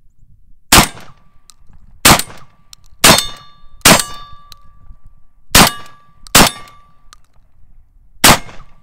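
Browning A5 semi-automatic 12-gauge shotgun fired seven times in quick succession at steel targets, the steel plates ringing out with a clang after hits.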